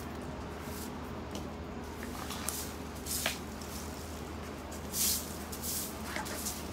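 A yellow-bristled broom sweeping a concrete slab: a series of brisk, uneven swishes of bristles across the surface, the loudest about five seconds in.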